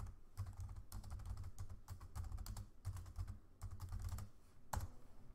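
Computer keyboard typing in quick bursts of keystrokes, a terminal command being entered, with one sharper key press near the end.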